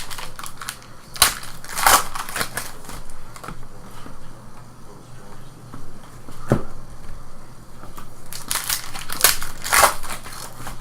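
Trading card pack wrappers crinkling and crackling as the packs are torn open and handled, in irregular bursts of rustling about a second in and again near the end.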